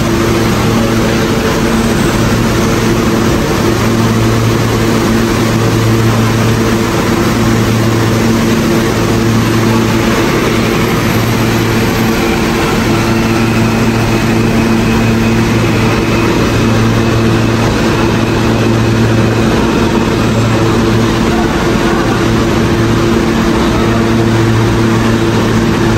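New York City subway train of R160 cars standing at the platform, its on-board equipment and air conditioning giving a steady hum with several low, even tones.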